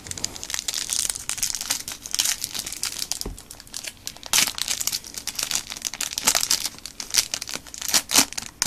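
Foil wrapper of a Yu-Gi-Oh! Return of the Duelist booster pack crinkling as it is handled and torn open by hand. The crackles come in irregular bursts throughout, with louder crinkles about four seconds in and near the end.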